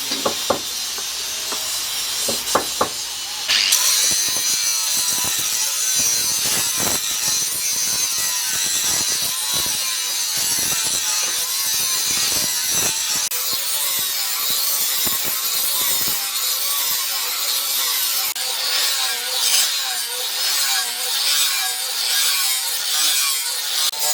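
Sawing in back-and-forth strokes; it gets louder and brighter about three and a half seconds in.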